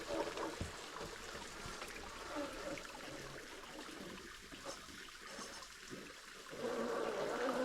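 Running water trickling, growing louder near the end.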